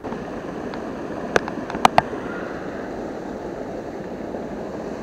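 Steady rushing of river water, with a few sharp clicks just under two seconds in.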